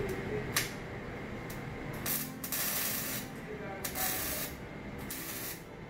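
Electric arc welder tacking a stainless steel exhaust tip onto the car's tailpipe: several short bursts of crackling hiss, the first about two seconds in, each lasting under a second. A single sharp click sounds just after the start.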